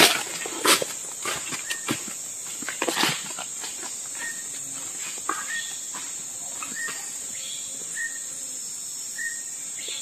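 Steady high-pitched insect drone in tropical forest. Footsteps crunch on dry leaf litter in the first three seconds and fade as the walker moves away. Five short high chirps follow from about four seconds in.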